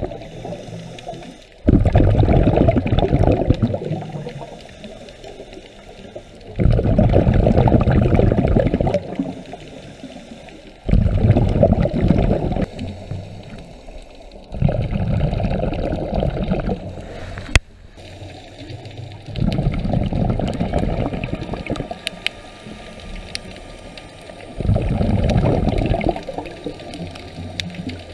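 Scuba diver's regulator breathing underwater: six rushing bursts of exhaled bubbles, one every four to five seconds, with quieter inhalations between. One sharp click about midway.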